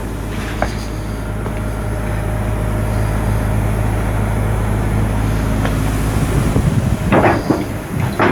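Steady hum of heavy shipyard machinery with a low drone, broken by sharp metal knocks, a cluster of them louder about seven seconds in.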